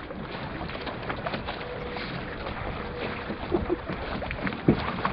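Wind blowing over the microphone and lake water splashing among small sailing dinghies, with a few short knocks, the loudest a little under five seconds in.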